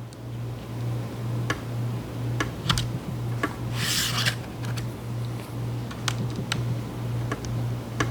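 Plastic pry picks scraping and clicking along the seam of a laptop's bottom case as it is worked loose, with one longer scrape about four seconds in. A steady low hum runs underneath.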